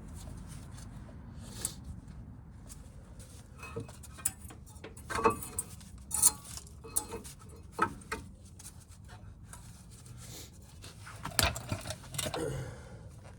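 Light metallic clinks and clicks of small brake parts and tools being handled, irregular, with a few sharper clinks in the middle and near the end.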